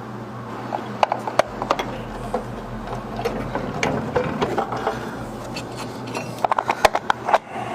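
Ratchet wrench clicking and rattling as a part is unbolted, over a steady low hum.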